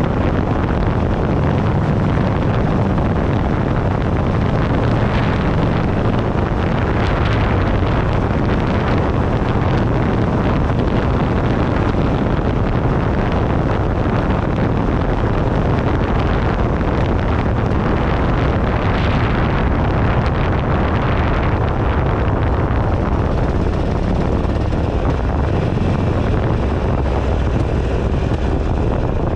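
Wind buffeting a handlebar-mounted action camera's microphone on a moving motorcycle, over the steady running of a 2008 Buell Ulysses XB12XT's air-cooled V-twin. Loud and unbroken, with no clear change in engine speed.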